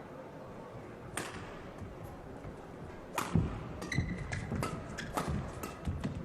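Badminton rally: a racket strikes the shuttlecock on the serve about a second in. From about three seconds in, sharp racket hits come roughly every half second, mixed with short squeaks from shoes on the court.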